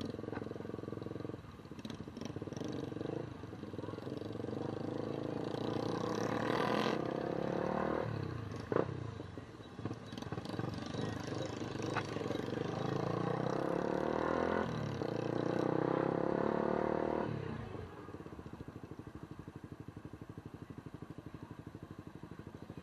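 An engine running, its pitch sliding down and then climbing again, then settling into a steady fast throb for the last few seconds.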